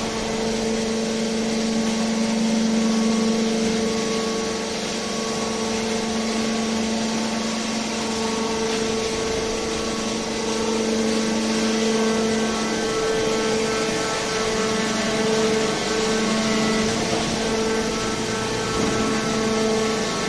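Hydraulic car baler's power unit running, a steady machine hum with a constant low tone and no impacts.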